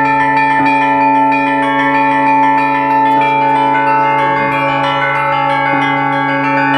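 Russian Orthodox church bells ringing a peal: smaller bells struck in quick succession over the long, steady hum of the larger bells, every stroke left ringing on.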